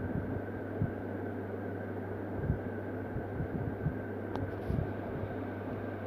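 Steady low electrical hum, with a few soft low thumps and a faint click about four seconds in.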